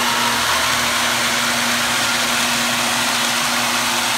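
Electric coolant pump running at full flow: a steady motor hum under the rush of a heavy stream of coolant gushing from the hose and splashing into the mill's bed.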